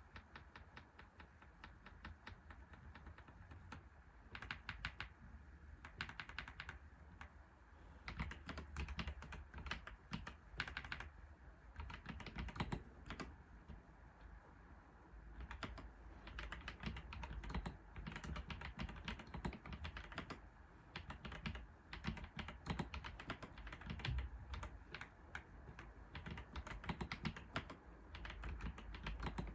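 Typing on a computer keyboard: runs of quick key clicks in bursts, with brief pauses between them.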